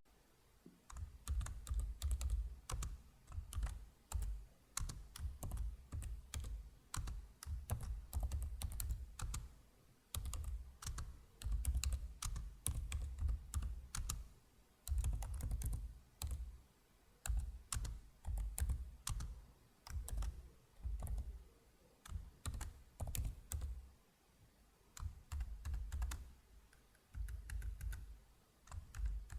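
Typing on a computer keyboard: runs of rapid key clicks, broken by short pauses of about a second.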